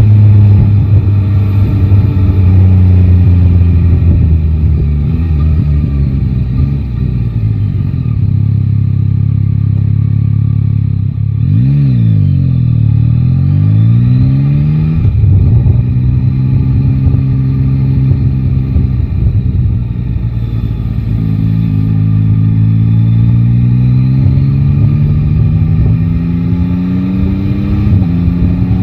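Yamaha Tracer 9 GT's three-cylinder engine under way on the road. Its pitch rises and falls with throttle and gear changes, dropping sharply and climbing back again a little over a third of the way in.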